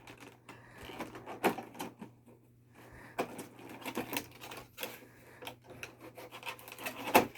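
Tape being cut on a cardboard figure box and the packaging handled: irregular clicks, scrapes and rubbing, with a sharper knock near the end.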